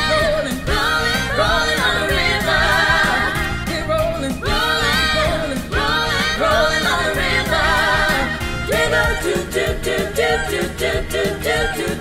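Group of women singing together over a band in an up-tempo soul-rock number, with rapid, steady drum hits in the second half.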